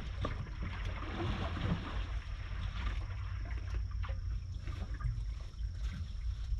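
Steady low rumble of a 46-foot Jarvis Newman boat's engine running at sea, with a wash of water and air noise that thins out partway through. A faint high steady whine sits over it.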